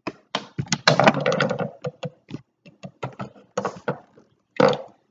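Plastic Lego bricks clicking and knocking as they are handled and pressed on a wooden tabletop: a rapid run of clicks about a second in, then scattered clicks and a last knock near the end.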